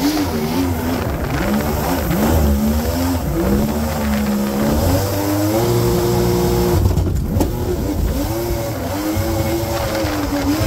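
Two-stroke engine of a mini jetboat running under way, its pitch rising and falling again and again as the throttle is worked, held steady for a moment partway through.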